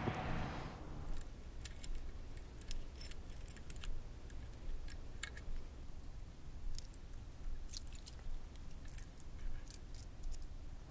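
Wind-like rushing noise fading out about a second in, then a quiet stretch with scattered faint light clicks and rustles of small handling.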